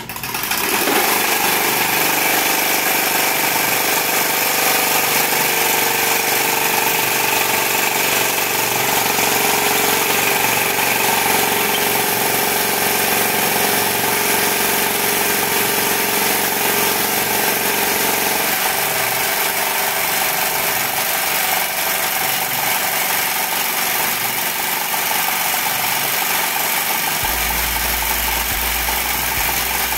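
Home-built tin-can Stirling engine running steadily at high speed, its flywheel spinning with a continuous mechanical whir. A low hum joins near the end.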